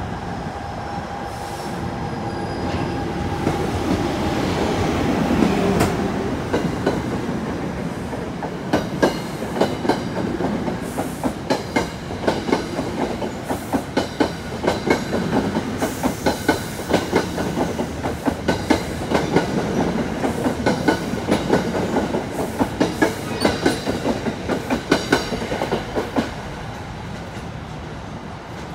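NJ Transit Bombardier ALP-45DP locomotive and its train of Comet passenger coaches passing close by. The locomotive's rumble builds over the first few seconds, then the coach wheels beat a steady, rapid clickety-clack over the rail joints, dying away near the end as the train pulls off.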